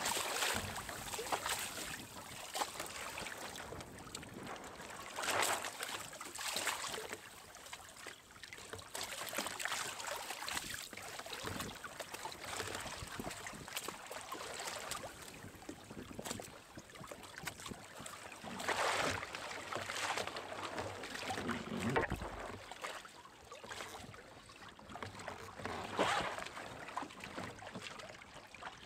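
Water rushing and splashing along the hull of a sailing kayak-trimaran as it moves through choppy sea, with several louder surges as waves slap against it.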